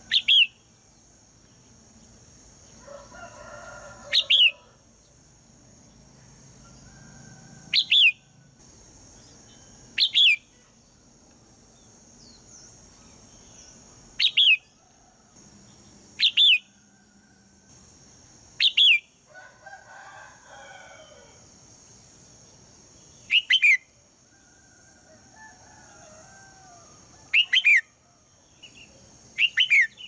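Red-whiskered bulbul giving about ten loud, short calls, each a quick falling note given two or three times in a burst, every two to four seconds. Softer chattering comes twice between the calls.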